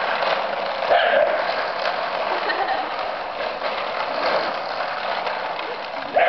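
A small wheeled trolley's wheels rattling over concrete as Scottish terriers tug it about, with a dog barking about a second in and again near the end.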